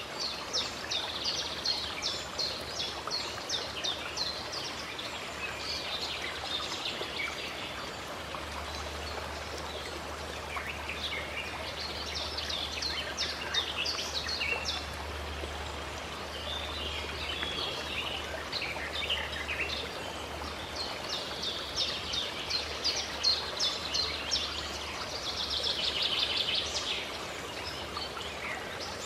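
Songbirds singing in many quick chirps and trills, busiest in two spells, over the steady rush of a stream.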